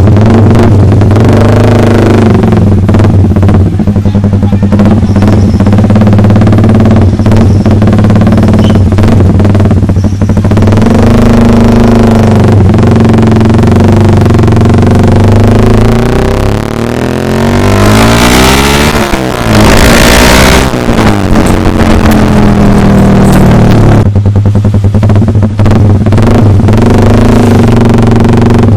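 Yamaha R15's single-cylinder engine running loud through a Proliner TR1 aftermarket racing exhaust, its note mostly steady. About two-thirds through the pitch sweeps up and down under a brief rushing noise.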